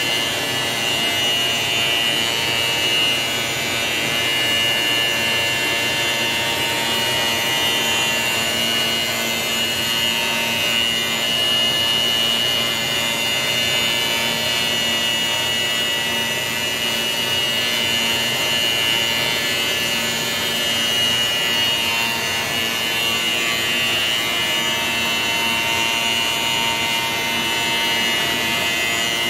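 Lathe running with a long nylon brush roller spinning in its chuck as its bristles are trimmed: a steady cutting and rubbing noise with a constant high whine and no letup.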